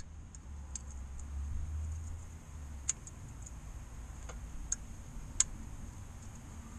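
Scattered light clicks and ticks from small metal parts being handled at an engine's crankshaft oil seal housing, about eight at irregular spacing. A low hum fades out a couple of seconds in.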